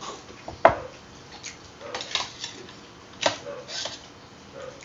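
Close-up eating sounds: a scatter of short clicks and smacks from chewing and from a small sauce bowl and spoon being handled. The sharpest click comes about half a second in.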